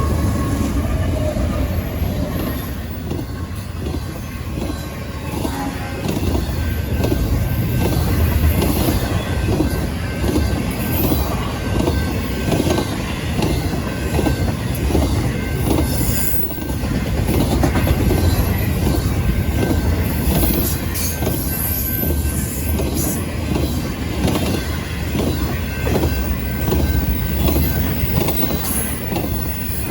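A train rolling past at close range: a steady rumble of wheels on rail with repeated clicks over the rail joints and a faint, thin wheel squeal.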